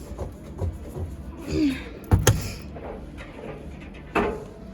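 Sharp plastic-and-metal clacks from a front-loading washing machine's door or detergent drawer being handled: a quick double clack about two seconds in and another knock about four seconds in.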